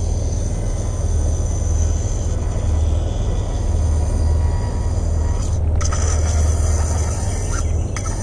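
Steady low rumble of wind buffeting the microphone, with faint thin high-pitched tones above it that cut out briefly about halfway through.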